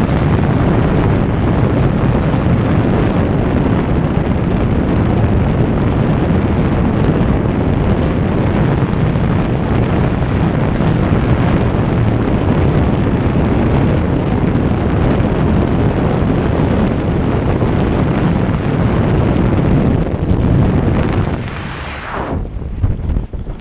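Jet boat running at speed: a loud, steady rush of wind buffeting the microphone over the boat's engine and water noise. It drops away sharply about 21 seconds in.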